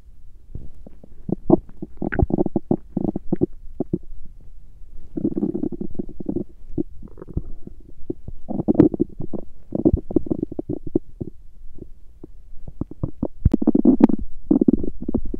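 A woman's stomach growling and gurgling: bouts of crackly gurgles come every couple of seconds, with the loudest bout near the end.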